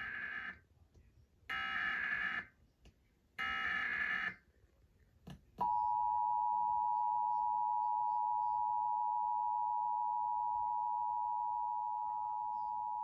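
Emergency Alert System test: the SAME header's digital data warble sent three times, each burst about a second long with a second's gap between, then the two-tone EAS attention signal (853 Hz and 960 Hz together) sounding steadily from about halfway in.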